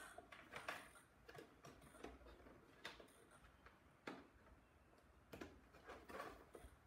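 Near silence, with faint scattered clicks and rustles from hands handling the fuselage and wiring of a model jet.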